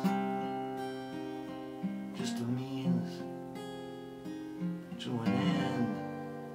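Acoustic guitar strummed slowly, three chords about two to three seconds apart, each left to ring and fade, under a soft male singing voice.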